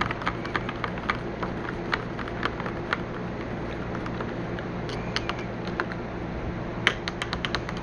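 Spoon stirring cocoa in a mug, clinking against the inside in light, irregular clicks about twice a second, with a quicker run of clinks near the end. A steady low hum sits underneath.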